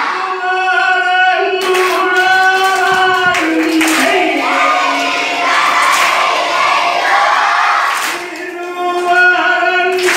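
A group singing an Aranmula vanjippattu, the Kerala boat song, together in long held notes, with a few sharp hand claps.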